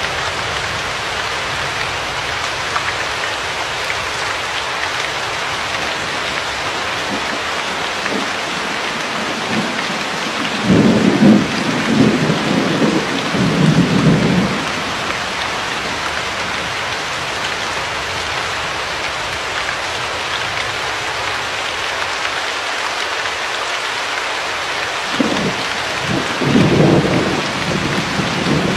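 Steady heavy rain hissing. Thunder rumbles twice: a rolling peal about ten seconds in, and another near the end.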